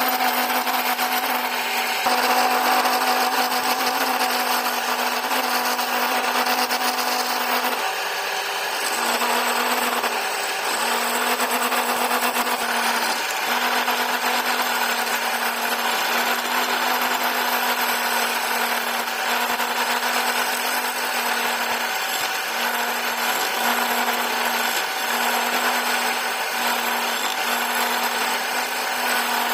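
Electric wood lathe running with a steady hum while a hand-held chisel scrapes and cuts inside the spinning wooden blank, hollowing out a wooden cup. The cutting hiss is continuous and eases briefly about eight seconds in.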